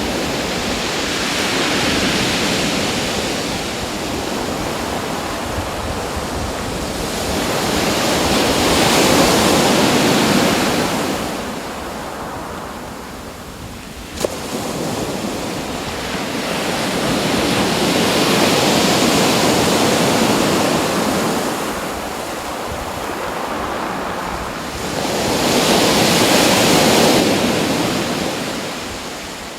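Ocean waves breaking and washing in, the rush swelling and fading four times, about every eight seconds. One short sharp click near the middle.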